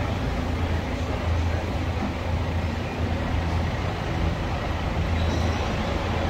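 Staten Island Ferry's engines running with a steady low rumble and an even, noisy haze above it while the boat docks.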